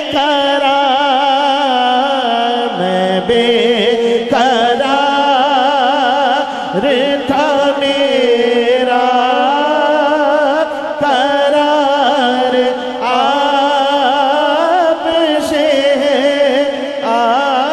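A man singing a naat solo, drawing out long melismatic notes that waver up and down, with short breaths between phrases.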